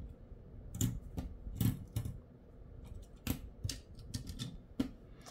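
Light clicks and clacks at an irregular pace, about ten in all, from a 1:64 diecast car-carrier truck model and its small diecast cars being handled.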